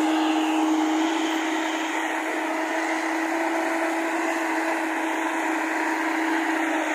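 JCB tracked excavator's diesel engine and hydraulics running steadily under load as the loaded bucket swings over a tractor trolley: a continuous mechanical drone with one strong steady tone.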